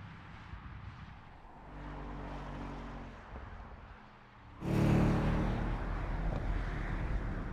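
Audi RS 7's twin-turbo V8 running at speed, moderately loud at first, then suddenly much louder about four and a half seconds in as the car comes close.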